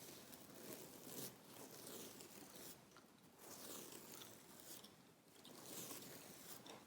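Fingernails scratching a fabric pillow close to the microphone in slow, repeated strokes of about a second each.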